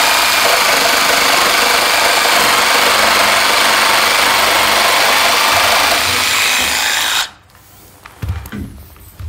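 Cordless power tool running steadily under load, then cutting off abruptly about seven seconds in, followed by a few low wooden knocks near the end.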